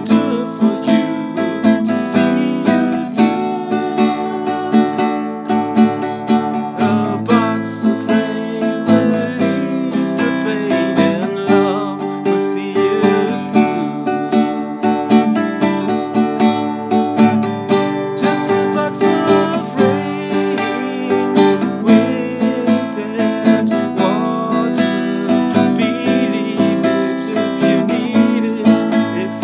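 Nylon-string classical guitar strummed in a steady rhythm, with a man singing over it.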